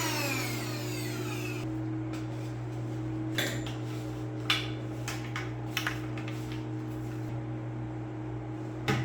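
Portable handheld vacuum cleaner's motor whine falling in pitch as it spins down, dying out in the first second and a half. A few short clicks and knocks follow between about three and six seconds in.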